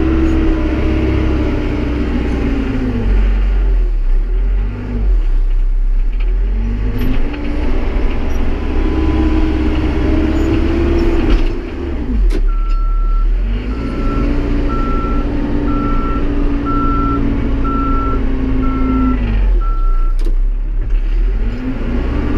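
Tractor backhoe's engine running and revving up and down in several long swells as it works, with its reversing alarm beeping steadily, about one beep a second, through the middle of the stretch.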